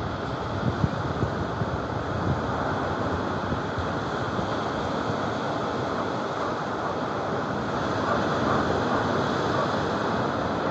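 Sea surf breaking and washing in a steady rush, with wind buffeting the microphone.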